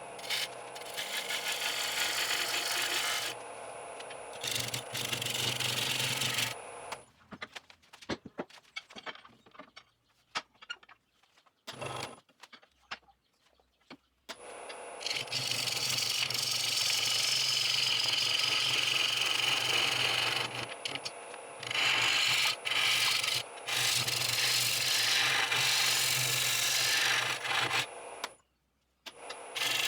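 Wood lathe turning a green sycamore bowl blank, a turning tool cutting the spinning wood with a steady hiss over the motor's low hum. The cutting runs in two spells, with a quieter pause of scattered clicks from about 7 to 15 seconds in.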